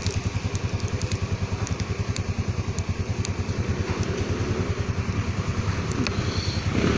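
An engine idling: a steady, rapid, even low throb.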